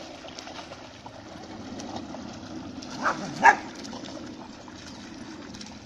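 A dog barks twice, about three seconds in, the second bark the louder, over the steady rush of shallow river water and splashing.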